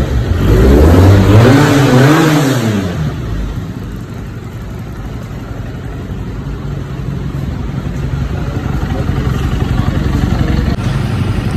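Benelli 302R's 300cc parallel-twin engine revved once, its pitch climbing and then falling back over about three seconds, then idling steadily.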